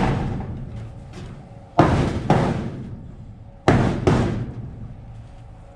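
Claw hammer blows driving nails into a wooden board overhead: four strikes in two pairs, each pair a hard blow followed by a lighter one. Every strike leaves a ringing decay of about a second.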